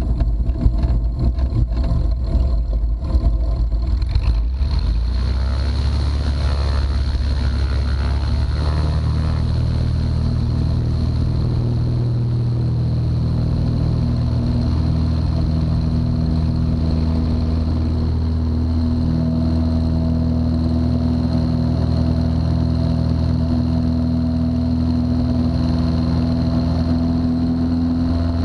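1957 Cessna 172's six-cylinder Continental engine running steadily at an even note. Choppy rattling noise covers it for the first four seconds or so.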